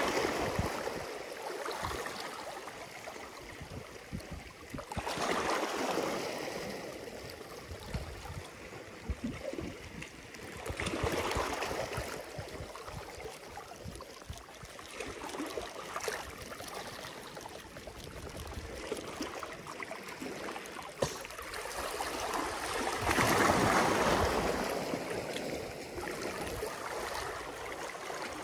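Small waves washing in over a rocky shoreline in slow swells every five or six seconds, with water trickling and gurgling between the rocks in the lulls. The largest swell comes about three-quarters of the way through.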